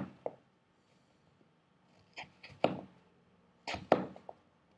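A D2-steel cKc 1.0 fixed-blade knife cutting through thick pomelo rind in short, sudden strokes: one just after the start, three a little past two seconds in, and a few more around four seconds.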